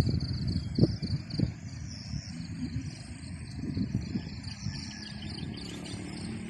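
Insects trilling high in a fast pulsing rhythm, over a low rumble with a few thumps near the start.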